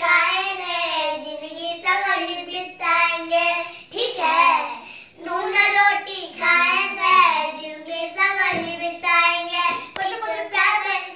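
A young boy singing a Bhojpuri song without accompaniment, in phrases of held, wavering notes broken by short breaths.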